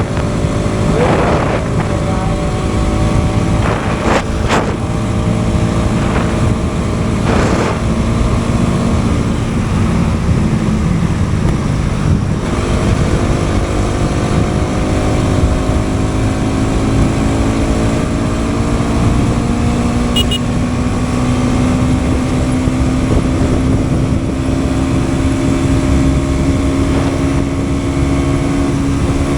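Bajaj Pulsar NS200 single-cylinder engine pulling hard on a highway run with a steady rush of wind, with a few brief whooshes in the first several seconds. From about halfway through, the engine note climbs slowly and steadily as the bike keeps accelerating.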